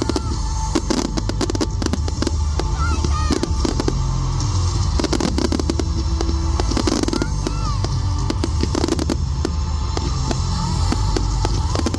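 Fireworks display going off: a rapid, continuous string of bangs and crackles, with short whistling rises among them.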